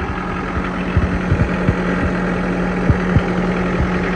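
Toro Groundsmaster 4500-D mower's four-cylinder diesel engine idling with a steady hum, along with irregular short low thumps.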